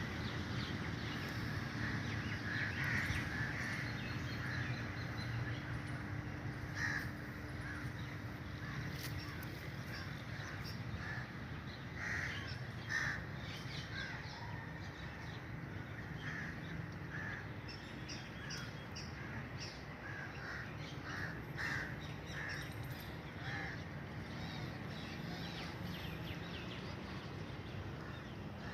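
Crows cawing, many short calls scattered throughout, over a steady low background rumble.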